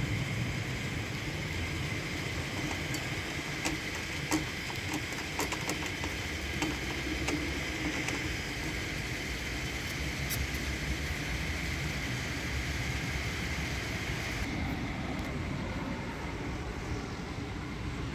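Automatic car-wash rotating brushes scrubbing a car under water spray: a steady whirring, swishing wash noise with scattered sharp ticks and slaps. About three-quarters of the way through, the high hiss drops away and leaves a lower, duller spray and rumble.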